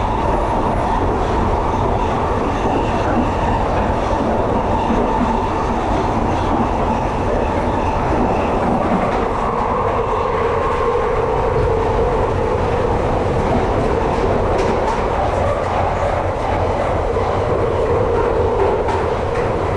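Victoria Line Tube train running through its tunnel, heard from inside the carriage: a steady, loud rumble of wheels on rail with a droning tone that shifts lower about halfway through.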